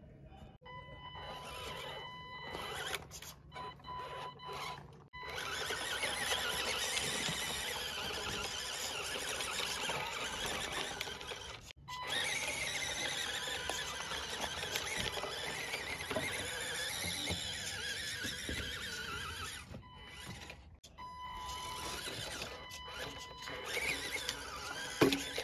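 Small electric motors and gearboxes of RC cars whining under load, the pitch wavering as the throttle changes, with a couple of brief breaks.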